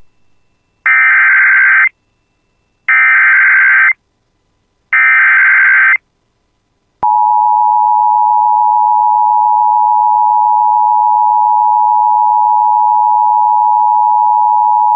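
Emergency Alert System alert opening: three one-second squawks of SAME header data, a second apart, then the two-tone EAS attention signal, a steady tone held for about eight seconds, announcing a severe thunderstorm warning.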